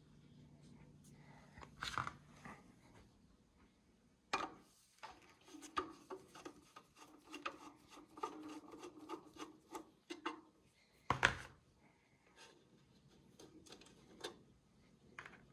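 Screwdriver working the corner screws of the cooling fan on a Bitmain Antminer L3+ miner's metal case: faint scraping and small clicks, with a louder knock about two-thirds of the way through.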